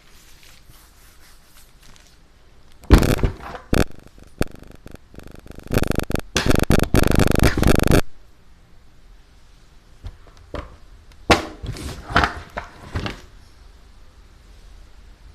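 Handling noise from unboxing a writing pad: packaging knocked and scraped, with a dense rasping stretch of about two seconds near the middle, then a few scattered taps and clicks.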